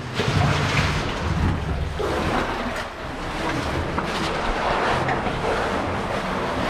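Steady rushing and splashing of water in an underground cave river.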